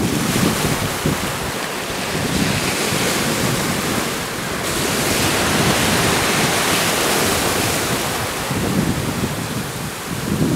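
Shallow surf washing up the shore, the foam hissing as waves run in, with wind buffeting the microphone.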